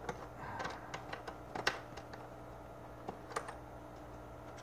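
Light, irregular plastic clicks and taps as hands handle the fittings on a Fluval FX6 canister filter, bunched in the first couple of seconds with two more a little past the middle.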